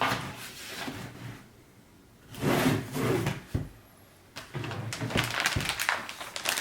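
Handling noise from PC parts and their packaging: short bouts of sliding and scraping, with quiet pauses between.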